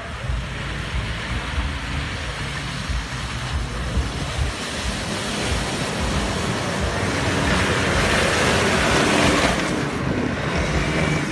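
Off-road 4x4 engine running low under a loud rushing noise that builds toward the end.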